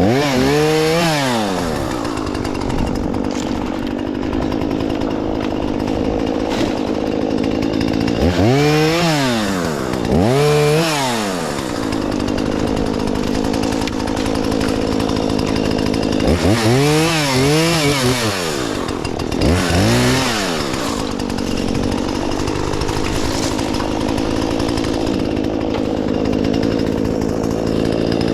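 Two-stroke chainsaw idling, revved up briefly about six times with the pitch rising and falling back to idle each time: a pair of blips around a third of the way in and three more in quick succession a little past the middle.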